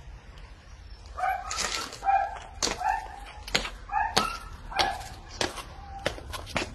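A dog barking over and over, about two barks a second, starting about a second in.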